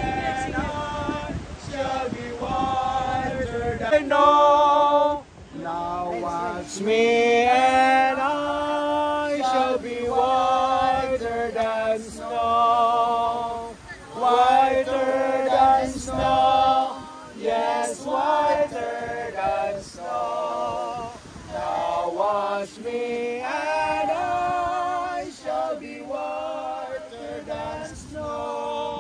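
Men and women singing a hymn together without accompaniment, congregational singing with long held, wavering notes.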